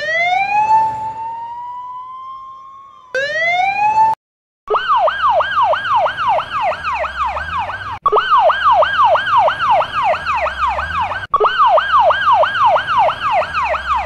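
Fire truck siren in a long rising wail that climbs again about three seconds in and cuts off. After a brief gap, a Canadian fire truck's electronic siren follows with quick falling sweeps, about three a second, broken by two short cutouts.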